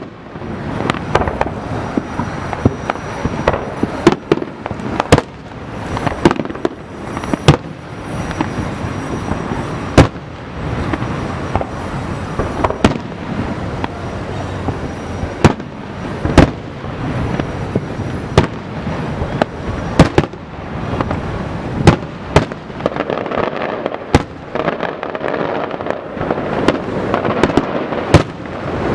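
Aerial fireworks display: a steady run of shell bursts going off irregularly, several sharp bangs every few seconds over continuous crackling.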